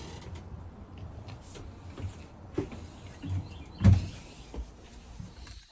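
Knocks and thumps of someone moving about and handling things aboard a boat, the loudest about four seconds in, over a low steady rumble.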